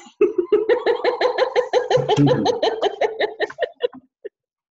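A woman laughing hard in a long run of quick, even "ha-ha" pulses, about six a second, for nearly four seconds before it trails off.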